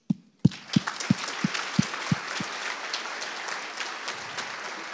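Audience applauding, starting about half a second in, with one pair of hands clapping close to the microphone about three times a second for the first two seconds.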